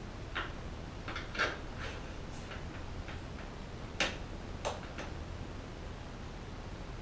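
Scattered light clicks and taps of bicycle stem and handlebar parts being handled and fitted together, about eight in all, the sharpest about one and a half and four seconds in.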